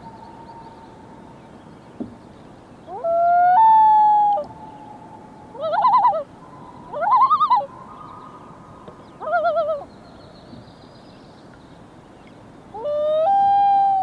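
Common loons calling. A long wail rises and then holds about three seconds in. Three short wavering calls follow between about six and ten seconds, and another rising wail starts near the end.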